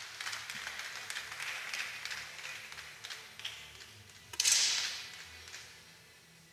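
Low hall noise with faint scattered clicks, fading away. About four and a half seconds in, a single sudden sharp swishing crack dies away within a second.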